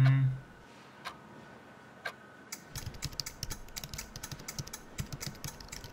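Cartoon sound effects: a brief low hum at the very start, then a clock ticking about once a second. From about halfway through, a fast, irregular clatter of clicks like typing on a keyboard takes over.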